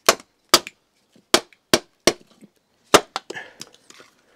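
A maul striking the back of a machete six times at an uneven pace, driving the blade down through a sycamore blank to split off excess wood. Softer scuffing and rattling follow in the last second or so.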